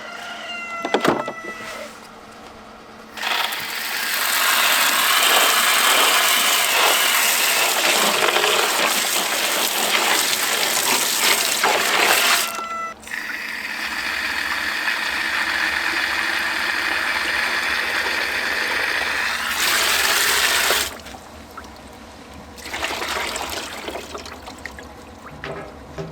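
Kitchen tap running hard as the brined turkey is rinsed under it, water splashing over the bird and into the sink. The water starts about three seconds in, stops briefly around the middle, then runs again until near the end.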